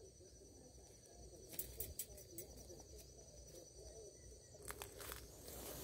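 Near silence: faint rustling with a few scattered light clicks.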